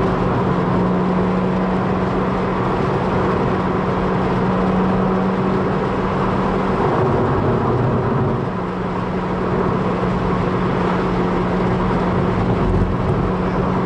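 Car engine running steadily at speed, with road and wind noise, heard from inside the car's cabin. The engine's steady note fades out about seven seconds in and returns at about the same pitch a second and a half later.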